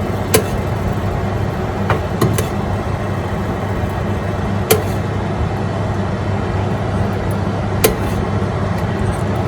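Steady hum of a running kitchen appliance, broken by a handful of sharp clicks as a spoon knocks against the metal roasting tray while the chicken is basted with its fat.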